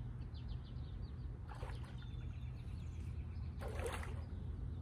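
A hooked bass splashing at the surface of the water twice, the second splash louder, over a steady low rumble, with small birds chirping faintly.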